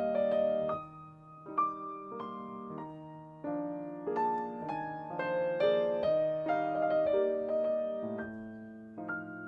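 Background piano music: a melody of single notes over held lower notes and chords.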